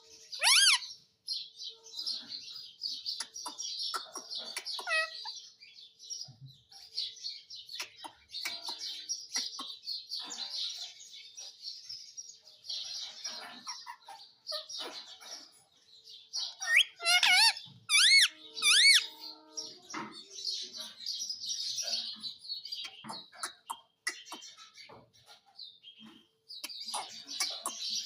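Pet parrots chirping almost without pause, with a loud wavering shriek about half a second in and three more in quick succession a little past the middle.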